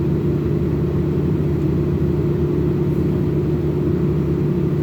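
Steady low hum of a car engine idling, heard from inside the vehicle, with a constant drone that does not change.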